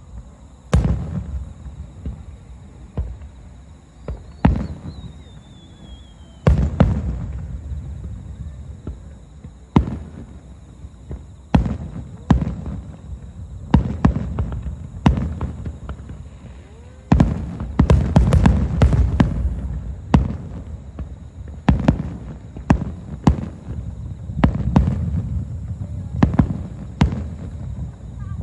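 Aerial fireworks shells bursting: a series of sharp booms, each trailing off in a low rolling rumble, with a dense volley of rapid bursts in the middle.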